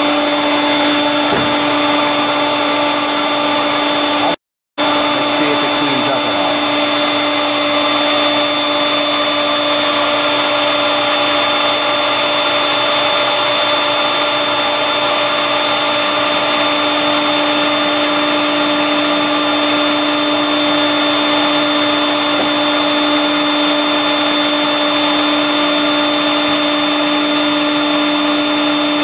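Electric blower on a wood gasifier running steadily, a vacuum-cleaner-like whine with a steady hum, drawing wood gas through the system and pushing it out the flare pipe. The sound drops out for a moment about four and a half seconds in.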